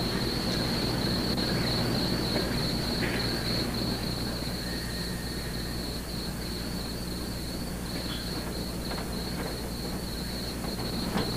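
Crickets chirping steadily at night, a continuous pulsing trill, over a low steady electrical hum.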